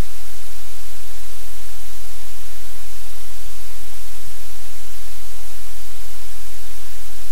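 Loud, steady hiss of static from the livecam's audio feed, even across all pitches, with a low hum beneath it.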